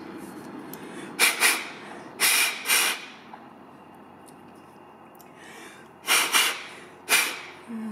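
A person blowing hard by mouth through a small plastic lawnmower carburetor to clear its passages and jets: several short puffs of air, a couple about a second in, two more around two to three seconds in, and two more near the end.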